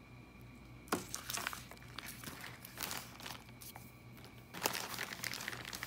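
Plastic shipping mailers and packaging crinkling and rustling as they are handled, in irregular spells: from about a second in, then again near the end.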